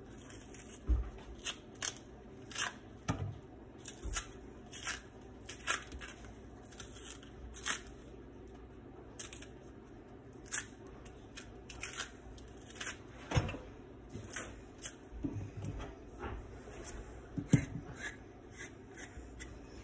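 Green plantain being peeled: irregular crisp snaps and scrapes as the thick peel is cut and torn away from the fruit.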